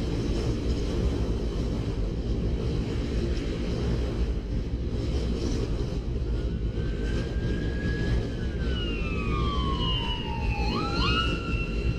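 Wind rushing over a bicycle-mounted camera's microphone while coasting fast downhill, a dense low rumble. About halfway a whistling tone comes in, slides slowly down in pitch, then jumps back up near the end.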